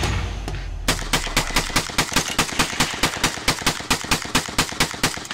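Rapid automatic gunfire at about five shots a second for some four seconds, stopping abruptly near the end. Before it, the echo of a single loud shot fades out over the first second.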